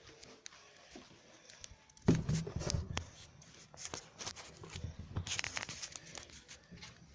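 Slime-making supplies being handled: a string of clicks, rustling and crinkling starting about two seconds in, with a short hissing rustle a little after five seconds.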